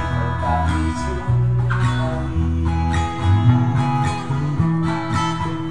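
Two guitars played together, a red acoustic guitar among them: strummed and picked notes over a line of low bass notes.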